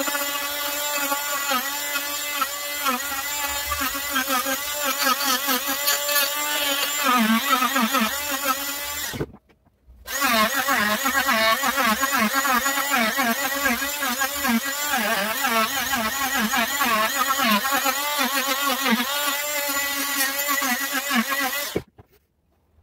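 Wesco oscillating multi-tool cutting into a wooden carving held in a vise: a steady buzz whose pitch wavers as the blade bites into the wood. It cuts out abruptly about nine seconds in, starts again a second later, and stops near the end.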